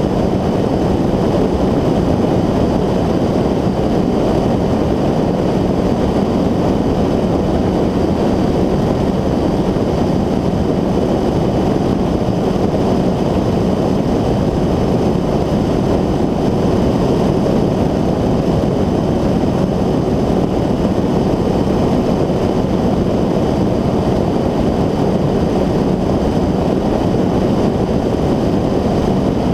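Northwing Maverick 2 ultralight trike's engine and pusher propeller running steadily in cruising flight, a continuous drone mixed with rushing air.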